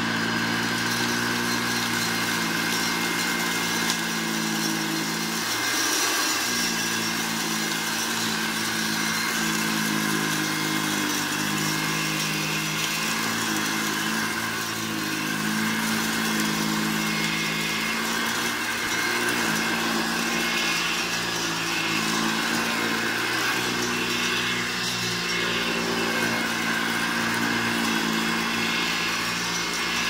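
1958 Hoover Junior 1334 upright vacuum cleaner running steadily while pushed back and forth over carpet, a steady motor-and-fan hum whose pitch shifts slightly several times.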